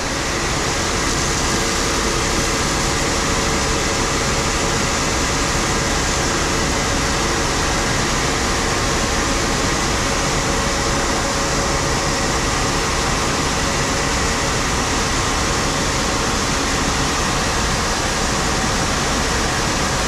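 Grain pit auger running loud and steady as it moves shelled corn unloaded from a hopper-bottom trailer, a constant mechanical noise with faint steady tones running through it.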